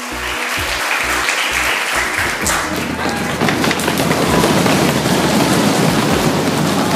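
A hall full of children clapping, with background music with a steady low beat running underneath.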